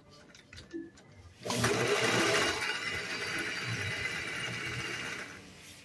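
A Singer 411G electric sewing machine sews a decorative pattern stitch at short stitch length. After a few faint clicks, it starts suddenly about a second and a half in, is loudest for the first second, then runs steadily and stops near the end.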